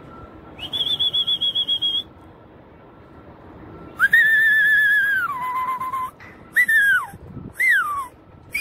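A pigeon keeper whistles by mouth to his flock of pigeons in flight. First comes a high, warbling whistle held for about a second and a half. Then a lower warbling whistle drops to a lower note partway through, followed by short whistles that each slide down in pitch.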